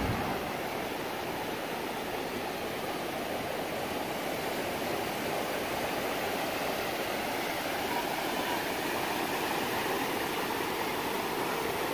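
Shallow seawater washing over wet sand at the edge of the surf, a steady rushing hiss of moving water.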